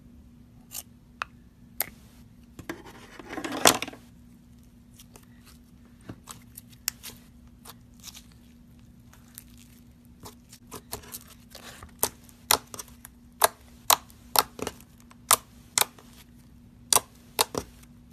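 Scissors cutting through a slime-filled rubber balloon, with a short tearing rush about three seconds in. Then fingers stretching and pressing the slime, making sharp clicking pops that come about twice a second in the second half.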